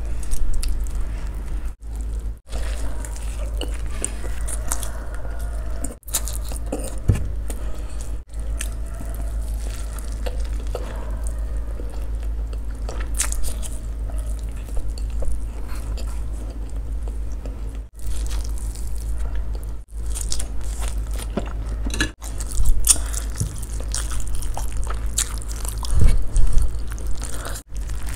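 Close-miked eating of sauce-coated rice paper noodle wraps: repeated biting and wet chewing, with a steady low hum underneath. The sound drops out briefly several times.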